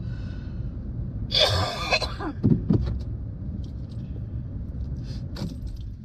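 Steady road and engine rumble inside a moving car's cabin. About a second and a half in comes a raspy cough from a person with a cold, followed by two short throat sounds.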